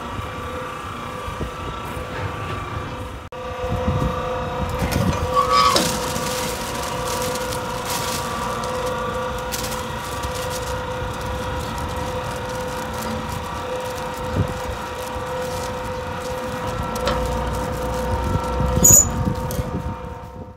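A vehicle running with a steady, unchanging drone over a low rumble, with a few knocks along the way; it cuts off suddenly at the end.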